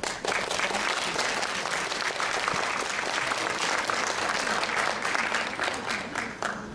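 Audience applauding. Dense clapping sets in at once and thins to a few single claps before it stops near the end.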